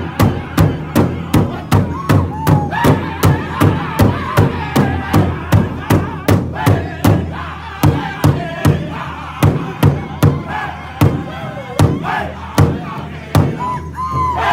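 Powwow drum group singing an intertribal song in high unison voices over a large powwow drum beaten together by several drumsticks, a steady beat of about three strikes a second. The beat drops out briefly just before the end.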